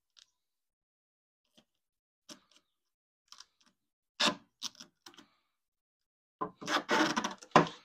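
Scattered clicks and short rasping rustles of duct tape being handled and wrapped around a pipe fitting. They are faint at first, with a louder rasp about four seconds in and a cluster of louder rasps near the end.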